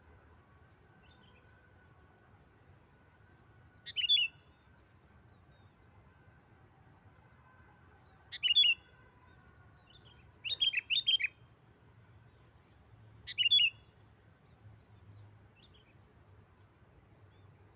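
Sooty-headed bulbul (kutilang) singing: four short, loud bubbly phrases a few seconds apart, the third a quick run of several notes, with a few faint calls between.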